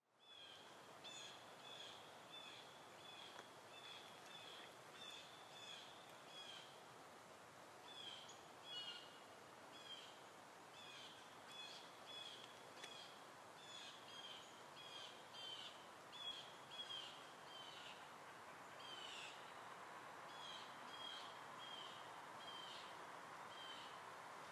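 A bird calling over and over in short, high chirps, roughly two a second, with a couple of longer down-slurred calls, over a faint steady background hiss.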